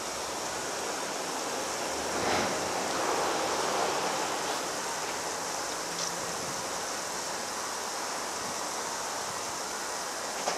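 Linde E14 electric forklift's hydraulic mast lowering from full height: a steady rushing hiss, swelling a little a couple of seconds in, with a faint click about two seconds in and another about six seconds in.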